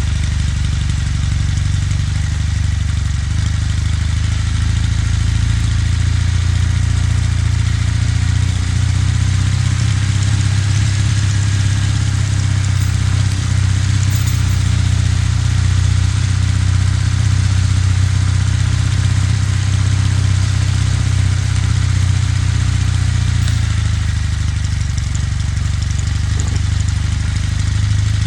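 Kawasaki W800's air-cooled parallel-twin engine running under way, its note rising a little in the first few seconds, holding steady, then easing off about three-quarters of the way through.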